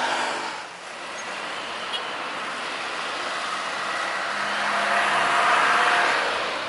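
Airliner jet engine noise, a steady rush with a faint whine, from a Boeing 737-800 rolling down the runway after landing. It dips briefly near the start and swells louder about five seconds in.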